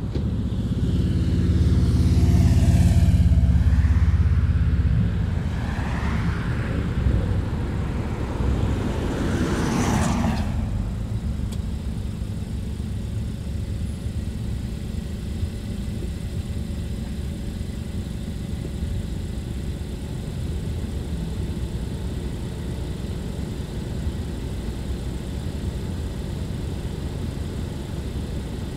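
Road noise of a car driving. A low rumble swells loud over the first few seconds, another short surge sweeps past about ten seconds in, and then it settles into a steady tyre-and-engine hum.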